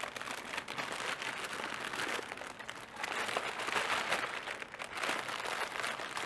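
Crinkly packaging and paper shred being handled and pulled apart: continuous crinkling and rustling that swells and fades in waves.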